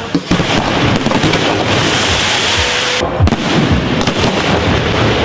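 Fireworks going off: a dense, continuous crackle of bursts, with sharper bangs about three seconds in and again a second later.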